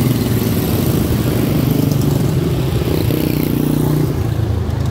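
Several quarter midget race cars with single-cylinder Briggs & Stratton Animal engines, running together as the pack goes past on the dirt oval.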